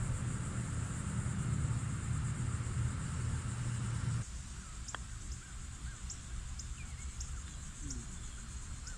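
Outdoor ambience: a steady low rumble for about four seconds that cuts off abruptly, followed by a quieter background with birds calling and one sharp click about five seconds in.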